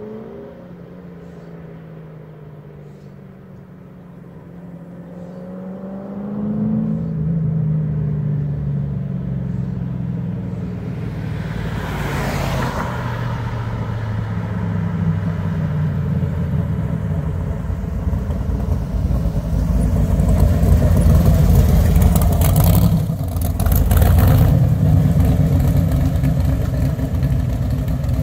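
Factory Five Mk3.1 Cobra replica roadster's engine running and revving, its pitch rising and falling in the first few seconds, then growing louder and staying loud. Short bursts of rushing noise come about 12 seconds in and again around 23 seconds.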